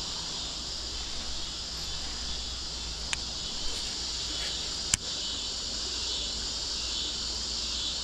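Steady high-pitched chorus of crickets and other insects, with a low steady rumble underneath. Two brief sharp clicks, about three seconds in and again about five seconds in.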